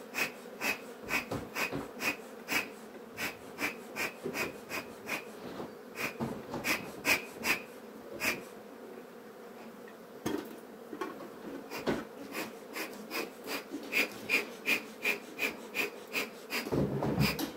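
Bee smoker's bellows pumped in quick, wheezing puffs, about two to three a second, pausing for about four seconds midway, to fan the fuel into a burn. Under it runs the steady hum of Buckfast honeybees from the open hive.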